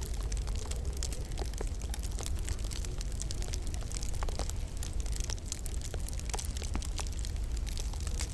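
Wood fire crackling in a log burner: frequent small, sharp pops and snaps at irregular intervals over a steady low rumble.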